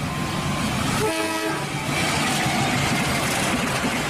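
Diesel-electric locomotive of Indonesia's KAI hauling a passenger train past, a steady rumble of engine and wheels on the track, with a short horn blast about a second in.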